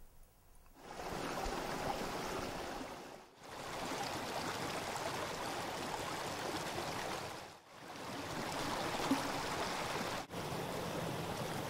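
Water of a small, partly iced-over creek rushing and splashing over rocks and a little cascade, a steady rush that comes in about a second in and dips briefly three times.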